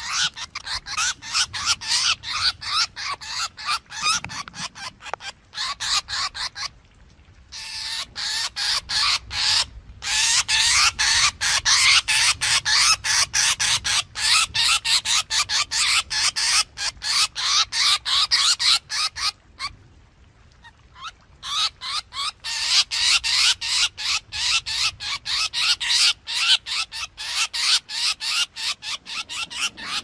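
Drongo calls from a trapping lure recording: a rapid string of short, sharp notes at about four a second, in long bouts broken by brief pauses, the longest of them just before the middle of the last third.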